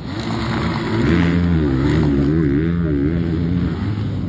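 Motorcycle engine revving, its pitch rising and falling over and over, louder from about a second in.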